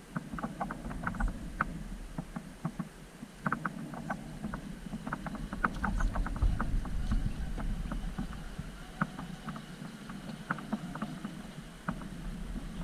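Scale RC rock crawler working over rock: a run of irregular light clicks and knocks from its tyres and chassis against stone, over a low rumbling background.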